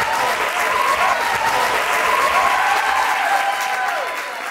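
Live audience applauding and cheering, with high whoops rising and falling over the clapping; it begins to fade near the end.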